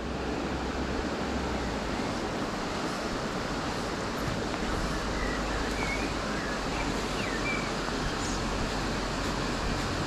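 Steady rushing of a shallow river flowing over its stony bed, an even wash of water noise.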